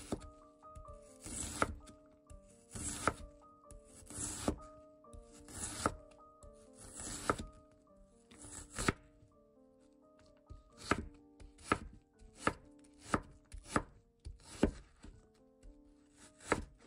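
A chef's knife slicing through an onion and striking a wooden cutting board in regular strokes. The strokes come about one every second and a half, then quicken to about one every 0.7 seconds a little past the middle.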